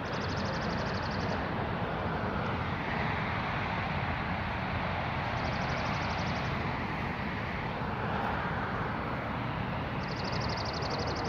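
Steady outdoor rumble with no clear single source. A high, rapid trill sounds three times, about five seconds apart.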